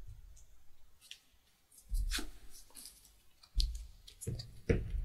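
Trading cards being handled and set down on a playmat: several short clicks and soft taps, the loudest about two seconds in and near the end.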